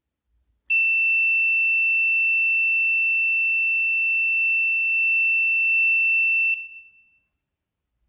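Piezo buzzer of an Arduino MQ-4 gas-leak alarm sounding one steady, high-pitched tone. It starts just under a second in and stops after about six seconds. The alarm has been set off by gas from a lighter held at the sensor.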